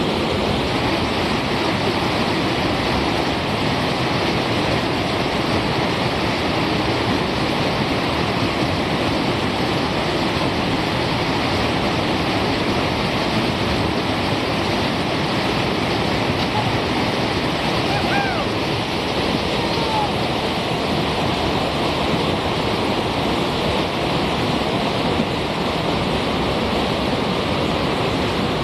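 Whitewater rapids rushing: a loud, steady wash of churning river water with no let-up.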